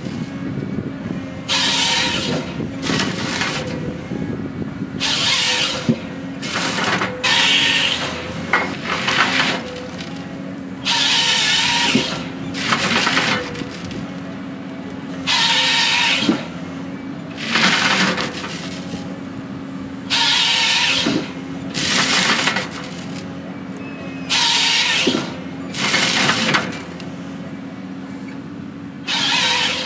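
Cat 320FM forestry carrier's diesel engine and hydraulics running steadily while the SATCO 318 processor head's chainsaw cuts stems to length in about a dozen loud rasping bursts, each about a second long and a couple of seconds apart.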